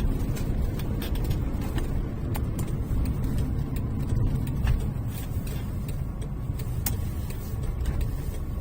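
Daihatsu Mira Gino (L700) driving at low speed: a steady low rumble of engine and road noise, with a few faint, irregular ticks.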